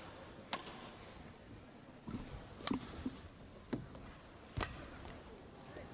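Badminton racket strikes on a shuttlecock during a rally: four sharp cracks one to two seconds apart over a quiet arena background.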